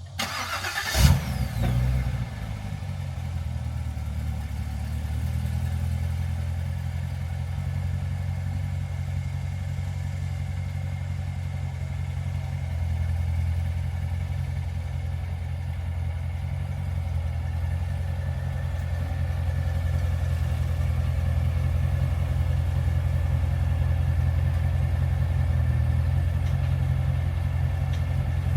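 Chevrolet Corvette Z06 engine cold-starting with a sharp burst about a second in, then settling into a steady low idle.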